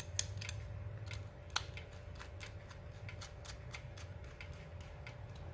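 Light, irregular clicks and taps of small metal parts as a thin bolt is handled and turned into an MK8 extruder's aluminium clamp with a screwdriver, with one sharper click about a second and a half in.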